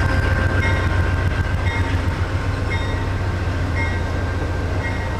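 Amtrak passenger cars rolling past on departure: a steady low rumble of steel wheels on the rails, with a short click about once a second and a faint steady high whine.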